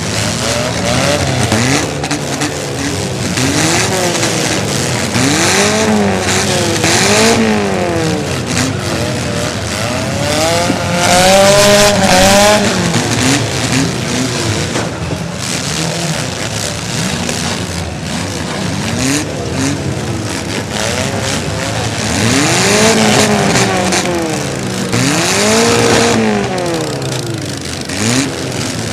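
Several demolition derby car engines revving up and down again and again, over a steady rush of noise. The revving peaks around the middle and again near the end.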